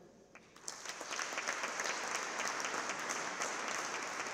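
Audience applause, starting under a second in and then going on steadily.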